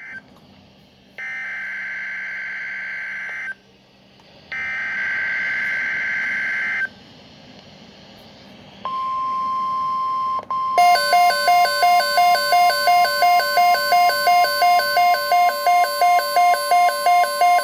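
NOAA Weather Radio alert: two buzzy bursts of SAME digital header tones, then the steady warning alarm tone starting about 9 s in. About two seconds later a louder pulsing alert beep, about three a second, joins it, as a weather radio receiver sounds its alarm.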